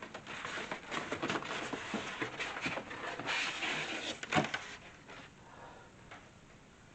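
Packaging being lifted off the top of a boxed washing machine: rustling and scraping, with one sharp knock about four seconds in, then it goes quieter.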